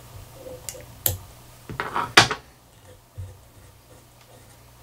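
A few light clicks and taps of hands and tools handling a fly-tying vise and the fly, the sharpest about two seconds in and a duller knock a second later, over a faint steady low hum.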